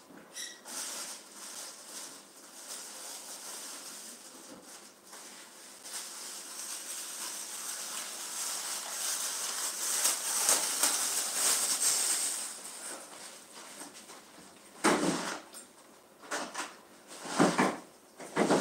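Off-camera rummaging: rustling that builds up over several seconds and then fades, followed by a few knocks near the end, as things are searched through and handled.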